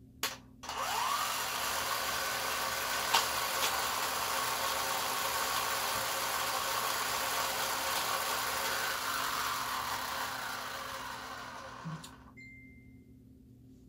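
Battery-powered motor in the launcher box of a 1978 Daredevil toy race track, switched on with a click, spinning up with a short rising whine and running steadily for about ten seconds. There are a couple of sharp clicks about three seconds in. The motor then fades away.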